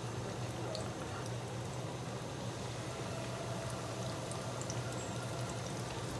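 Chicken drumsticks deep-frying in hot oil in a cast iron skillet: a steady sizzle with scattered small pops.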